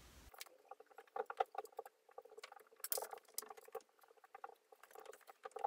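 Faint, irregular light clicks, taps and rustling of hand work: small metal washers being handled and set as spacers against a wooden drawer front.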